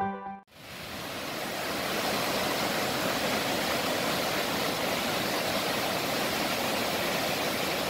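A waterfall in heavy flow, a steady, loud rush of falling water that fades in about a second in, just after a short gap.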